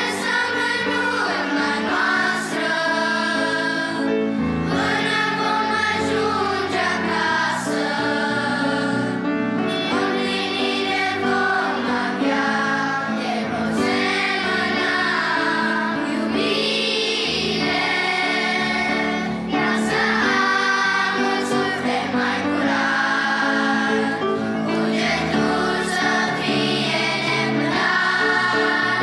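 Children's choir singing a Romanian Christian song in Romanian.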